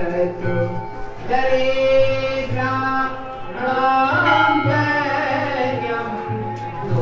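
Hindu aarti being sung: a devotional hymn with long held notes, sung with musical accompaniment.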